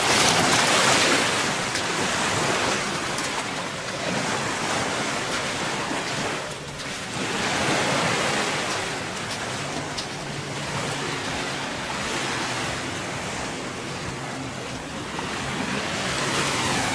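Gulf of Mexico surf washing onto the beach, waves breaking and running back in slow swells, loudest at the start and easing about six seconds in before building again. Wind buffets the microphone.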